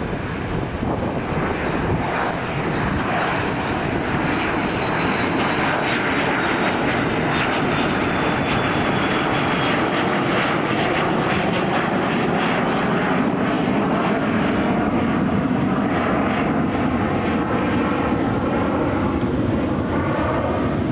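Twin Honeywell HTF7350 turbofan engines of a Bombardier Challenger 350 business jet at takeoff thrust, climbing out and passing overhead: a steady roar with a thin high whine that slowly drops in pitch and fades about ten seconds in.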